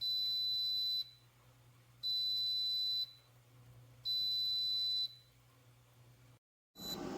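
Single-serve coffee maker's electronic beeper sounding three long, high beeps, each about a second long with a second's pause between them, then a short beep near the end.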